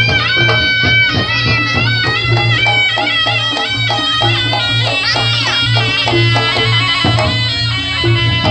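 Reog Ponorogo music: a reedy, shawm-like melody with sliding pitch bends, played over a steady, pulsing low beat and regular drum strokes.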